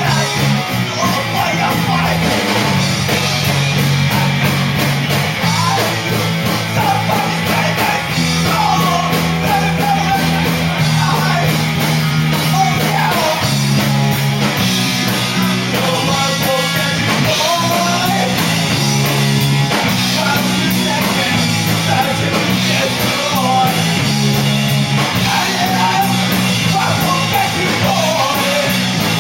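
Rock band playing live, with a singer over a bass line that moves every second or two and a steady drum beat with cymbals.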